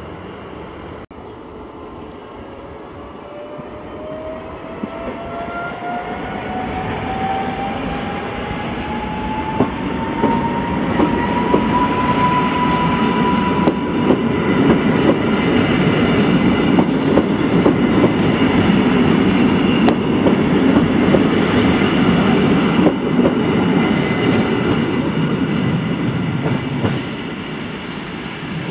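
Koleje Mazowieckie EN57AKM electric multiple unit accelerating along the platform. Its traction motor whine rises steadily in pitch over the first dozen seconds, while the rumble and clatter of the wheels on the rails grow louder, then drop off shortly before the end.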